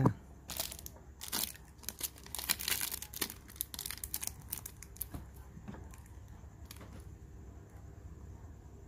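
Handling noise: a crinkling rustle with many small clicks for about five seconds, then faint room tone.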